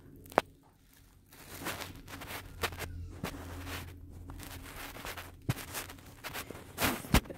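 Thin plastic shopping bags rustling and crinkling as items are pulled out, with scattered sharp taps and knocks from handling.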